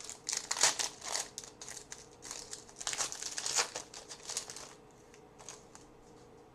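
Trading cards and their foil pack wrapper being handled: irregular crinkling and rustling that dies down after about five seconds.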